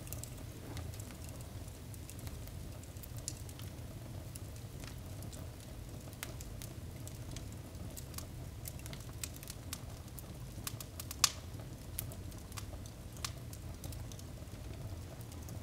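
Wood fire burning in a fireplace, crackling with scattered sharp pops and one much louder pop about eleven seconds in, over a low steady rumble.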